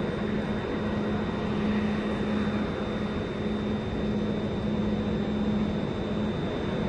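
A train at a railway station platform: a steady rumble with a low hum that drops out briefly now and then, and a faint high whine.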